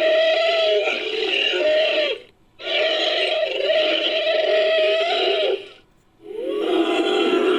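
Woolly mammoth sound effects used as the voice of an invented mammoth-like creature: long pitched calls. One ends about two seconds in, a second runs about three seconds, and a lower-pitched third begins near the end.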